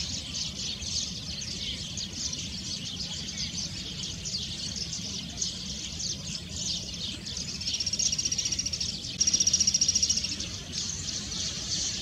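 Wild birds chirping in a dense, continuous high chorus. Two bouts of a rapid, high-pitched buzzy trill come about eight and nine seconds in and are the loudest sound. A low steady rumble runs underneath.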